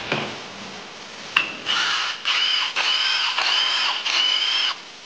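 Cordless power driver spinning in five short runs with brief pauses between them, a steady whine each time, as it backs out the bolts of the clutch side cover on a Husqvarna FS450 engine. A single click comes just before the first run.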